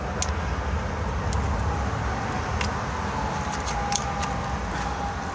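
A few faint plastic clicks as the electrical connector on a GM LT-1 Optispark distributor's main power feed is worked loose by hand, over a steady low rumble.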